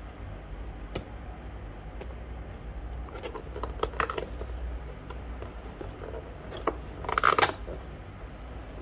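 Cardboard packaging being handled and worked open by hand: scattered clicks and scrapes, with a louder, rougher scrape about seven seconds in.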